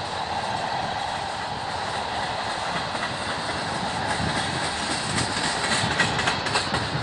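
BNSF freight train of tank cars rolling past with a steady rumble of wheels on rail and repeated clickety-clack as the wheels cross the rail joints. A burst of sharper clanks comes about five to six seconds in.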